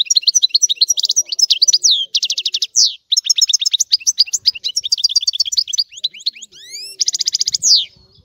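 European goldfinch singing: a fast, unbroken run of twittering notes with rapid buzzy trills and a few rising whistled sweeps, ending on a trill.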